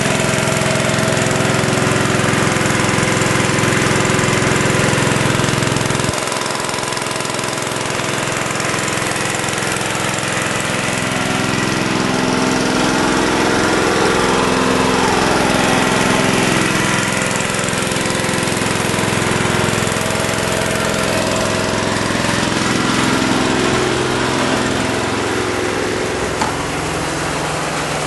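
Engine-driven water pump on a hauling truck running steadily, pumping water through a hose into a cistern. It drops a little in level about six seconds in and its pitch rises and falls once near the middle.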